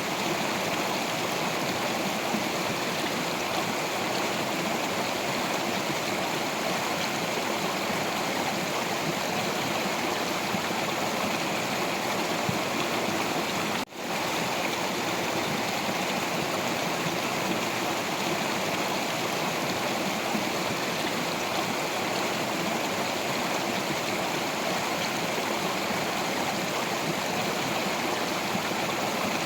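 Stream water rushing and gurgling over rocks in a steady, unbroken flow, with a brief drop-out near the middle.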